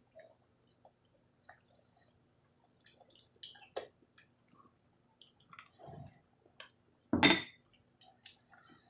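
Close-up eating sounds: scattered wet clicks and smacks of chewing a rice meal, with one much louder wet mouth sound about seven seconds in.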